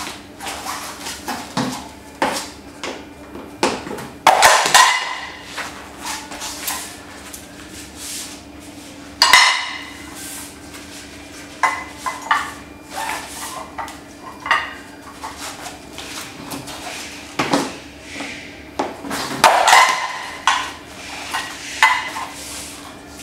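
Irregular knocks and clatter of a hoverboard's hard plastic and metal frame being set down and shifted on metal support blocks. Three louder clanks ring briefly: about four seconds in, near the middle and near the end. A low steady hum runs underneath.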